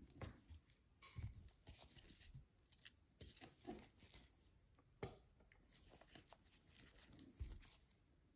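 Near silence with faint scattered clicks and light scrapes of watchmaking tools handling small movement parts; the sharpest click comes about five seconds in.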